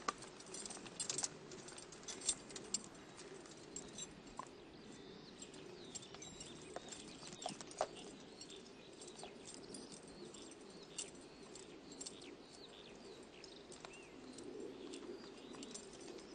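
Outdoor ambience of birds chirping and calling, with scattered light clicks and taps over a faint steady background.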